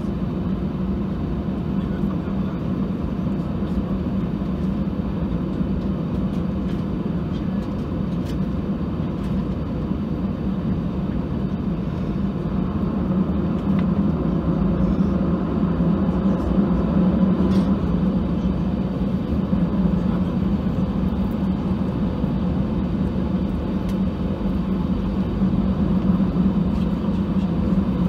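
Steady hum and rumble inside the cabin of an Airbus A319 on the ground, growing louder about halfway through.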